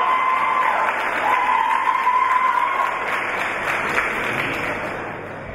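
Crowd applauding after a fighter is announced, the clapping dying down near the end.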